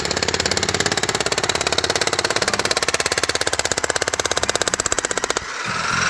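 Jackhammer chiselling into solid rock, a rapid, even hammering. About five and a half seconds in it changes abruptly to a steadier, smoother rattle.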